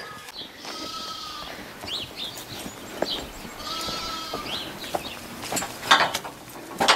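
Two drawn-out bleats from a farm animal, each about a second long, with a few short knocks in between.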